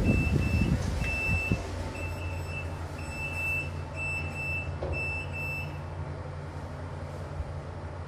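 Fujitec lift's door-closing beeper sounding a high electronic beep in uneven pulses for about six seconds while the doors shut, over a steady low hum of the lift car.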